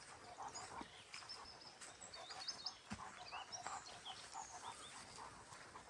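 A dog panting in a quick, even rhythm while on the move, with faint bird chirps and trills above it.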